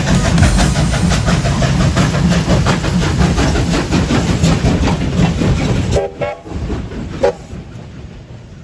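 Double-headed steam locomotives hauling a goods train past at close range, running loudly with a heavy low rumble. About six seconds in it drops sharply quieter as the wagons roll by, with a couple of short squeaks, and then fades.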